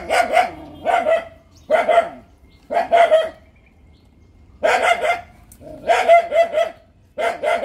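A dog barking in quick runs of two to four barks, about one run a second, with a pause of over a second in the middle.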